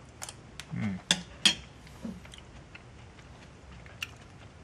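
Someone eating with a spoon from a bowl: a few sharp clicks of the spoon against the bowl and teeth in the first two seconds, the loudest about a second and a half in, with a brief low hum of voice, then a single small click about four seconds in.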